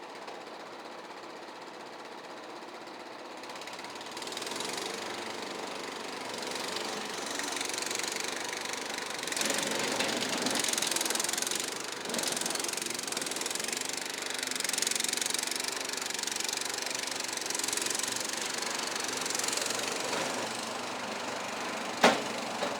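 Kohler gasoline engine of a Struck Magnatrac Junior miniature crawler bulldozer running steadily, getting louder about three and a half seconds in as it works, with a single sharp knock near the end.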